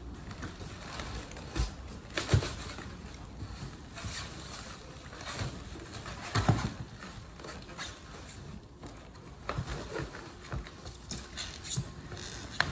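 A person climbing down off a stack of cardboard boxes and shrink-wrapped pallets: irregular thumps, scuffs and creaks of cardboard under his weight. The sharpest thump is a little over two seconds in, with another strong one about six and a half seconds in.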